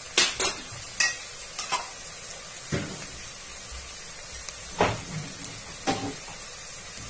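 Sliced onions, green chillies and freshly added ginger-garlic paste sizzling in hot oil in a metal pot, a steady frying hiss. Sharp knocks of a stirring utensil against the pot sound about eight times, most of them in the first two seconds.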